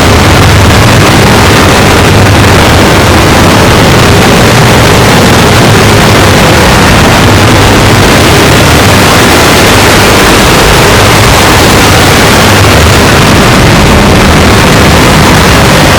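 Loud, steady, heavily distorted noise with a low drone, clipped near full scale, with no breaks or distinct events: audio warped beyond recognition by stacked digital effects.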